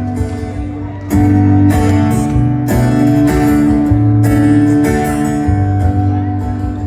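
Live band music without vocals: strummed guitar chords over a steady bass line, the chords changing about every second.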